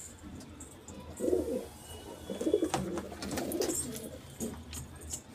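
Domestic pigeons cooing in a loft: several low coos about a second in and again through the middle, with a few sharp clicks among them.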